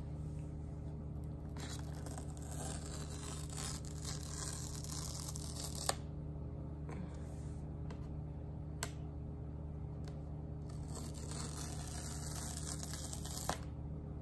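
Paper pull-tab tear strips being ripped off a sealed iPad box: two long tearing stretches, each ending in a sharp snap, with another sharp click between them, over a steady low hum.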